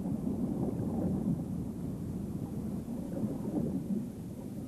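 Low, steady underwater rumble with no distinct events.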